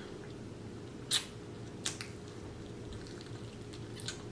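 Wet mouth sounds of someone eating close to the microphone: three short smacking clicks, the loudest about a second in.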